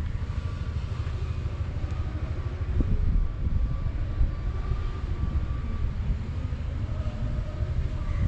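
The 2012 New Holland B90B backhoe loader's diesel engine running, a steady low rumble with a faint high whine over it and a few knocks about three seconds in.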